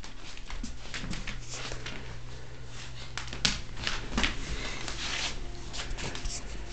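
Bernese Mountain Dog chewing a hard dog biscuit, a run of irregular crunches and clicks, with the sharpest snaps about three and a half and four seconds in.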